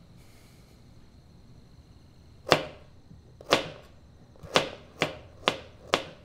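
Kitchen knife chopping carrots on a plastic cutting board: six sharp chops starting about two and a half seconds in, the first few a second apart, then quicker.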